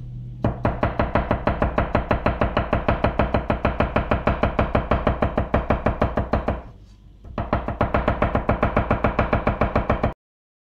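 Yoshiaki Fujiwara 240 mm gyuto chopping fast on a wooden cutting board, mincing celery: a rapid, even run of knife strikes at about six a second. There is a short break partway through, and the sound cuts off abruptly near the end.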